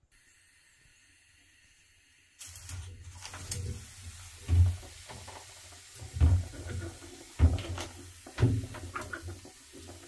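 Hand-held pump pressure mister spraying water in a series of short hissy spritzes, mixed with low thumps and rumble from the sprayer being handled. The first couple of seconds are faint.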